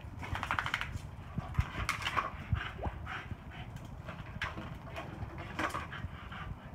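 Small dog making noises as it plays with a paddle, with one short rising whine about three seconds in.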